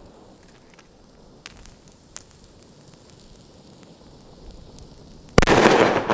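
Pyro Union P1 Schallerzeuger firecracker: its fuse fizzes faintly with a couple of small crackles, then about five seconds in the firecracker goes off with one very loud bang that trails off.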